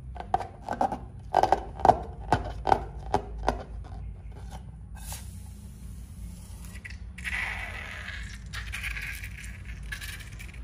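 A quick run of about eight sharp clicks in the first three and a half seconds. Then, from about seven seconds in, a longer rough squirting sound as a balloon is squeezed and its liquid spurts out onto a plate of slime.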